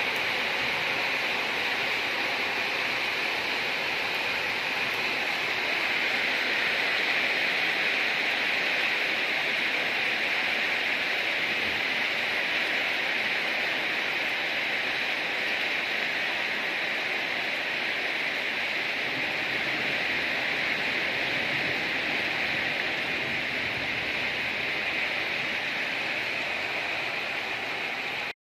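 Heavy rain pouring down, a dense, steady hiss with no breaks.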